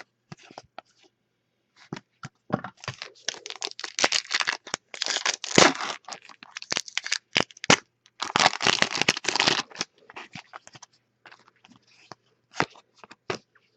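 A trading-card pack wrapper being torn open and crinkled, with dense crackling from about two seconds in, then scattered clicks and rustles as cards are handled.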